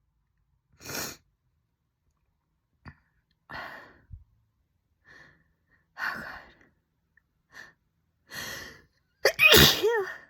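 A woman's sneeze build-up: several short, noisy gasping breaths a couple of seconds apart, then a loud sneeze near the end with a voiced cry that bends up and down in pitch.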